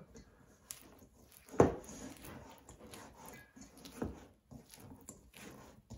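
Bread dough being stretched and folded by hand in a stainless steel bowl: soft sticky squelches and clicks, with a sharper thump about one and a half seconds in and a smaller one around four seconds.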